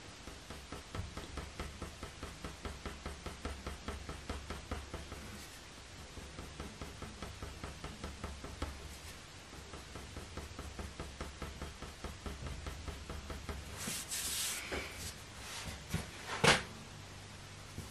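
Faber-Castell Polychromos coloured pencil making quick, short flicking strokes on heavy hot-press watercolour paper as fur hairs are drawn in: a fast, even run of light ticks. Near the end comes a brief rustle, then a single sharp knock, the loudest sound.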